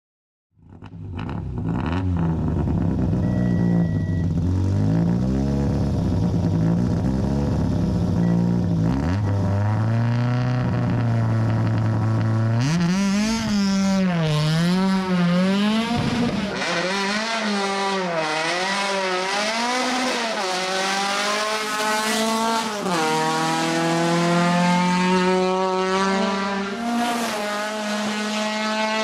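VW Golf Mk2 hill-climb race car's engine running, then revved up and down repeatedly at the start line. About two-thirds of the way in it launches with some tyre squeal and accelerates hard, the engine pitch climbing and dropping at each of about three upshifts.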